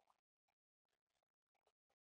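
Near silence, with only a few extremely faint clicks.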